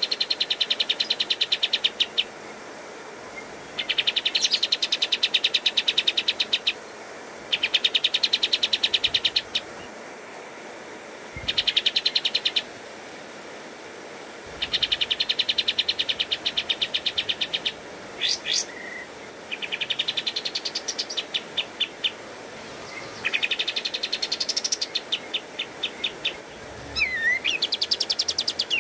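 Olive-winged bulbul (kapas tembak) singing in bursts: seven or eight rapid, rattling strings of high notes, each lasting two to three seconds, with short pauses between. Toward the end the bursts break into more varied phrases with rising notes.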